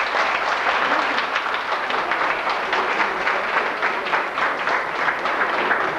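A group of people applauding: dense, steady clapping.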